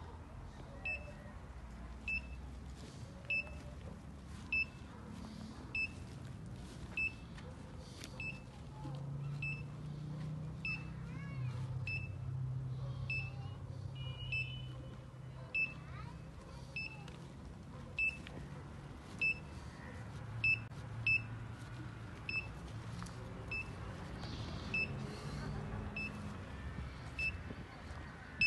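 Max Lora hand-held groundwater locator beeping at a steady pace, one short high-pitched beep about every 1.2 seconds.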